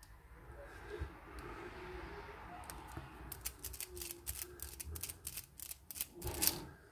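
Small metal clicks and light clatter of a lock cylinder and hand tools being handled on a bench, sparse at first, then a quick run of ticks from about halfway, with a louder rattle near the end.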